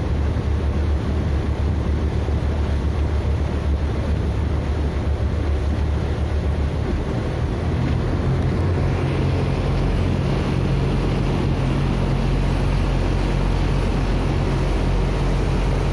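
Motorboat engine running steadily under way, with the rush of its wake and wind on the microphone; the engine's low drone shifts in pitch about halfway through.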